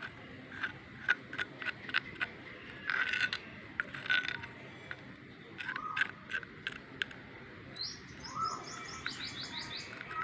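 Birds chirping in the background, with a rapid run of high repeated notes near the end. A string of light, irregular clicks and taps runs through the first seven seconds or so.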